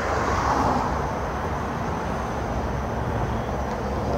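Street traffic noise: a steady rush of passing vehicles, swelling in the first second as one goes by, then settling.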